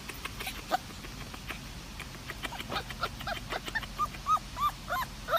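A puppy yipping in a quick series of short, high yips, about three a second, starting about three seconds in.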